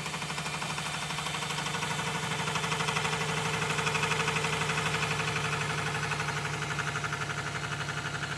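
Chinese 8-in-1 combination machine tool running under load, a tooth-form disc cutter milling teeth into an aluminium toothed-pulley blank: a steady motor hum with a fast, even chatter of cutting that swells in the middle and eases off again.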